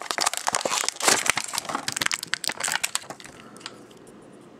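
Clear plastic blister pack of a Hot Wheels car being crushed and pulled open by hand: a rapid run of crackling and crinkling that dies away after about three seconds.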